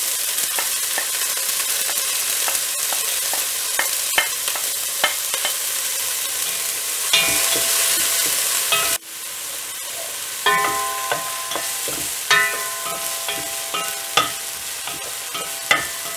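Chopped onions sizzling in hot oil in a pot, stirred with a wooden spoon that knocks and scrapes against the pan. The sizzle drops suddenly about nine seconds in and goes on quieter, with sharper spoon knocks that make the pot ring briefly.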